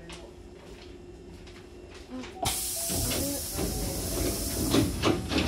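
Train's double sliding doors closing: about halfway through, a sudden loud hiss of air comes from the door engine as the leaves slide shut, and a few knocks near the end as the doors come together.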